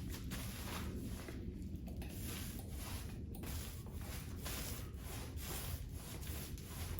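Repeated rubbing strokes, about one to two a second, each a short scratchy swish.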